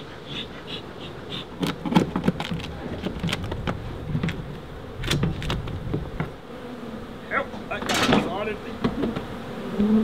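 Disturbed honeybees buzzing while a hive tool scrapes and knocks old comb out of the wooden box, with several sharp knocks around two seconds in and again about five seconds in.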